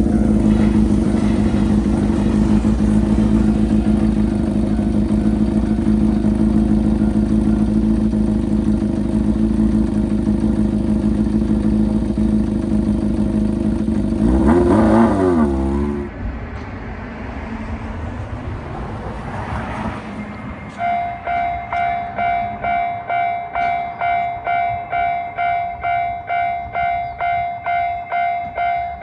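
A steady, loud engine-like drone that wobbles in pitch and cuts off about fifteen seconds in. About twenty seconds in, a Japanese railroad crossing's electronic warning bell starts ringing, about two and a half dings a second.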